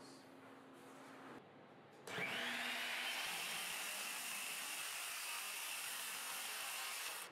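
Handheld circular saw starting up about two seconds in with a rising whine, then running steadily at a high pitch as it cuts across the end of a thick walnut slab; the sound stops abruptly near the end.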